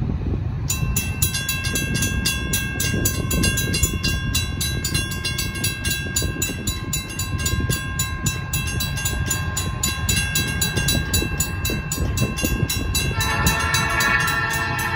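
Huron Eastern freight train's diesel locomotives approaching, the horn sounding first as steady held tones and then, about 13 seconds in, as a much louder chord of several notes. A fast, evenly repeating high ringing runs under it from just after the start.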